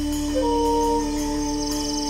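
Background music: a steady held low drone, with a higher sustained note coming in about half a second in and ending about a second in.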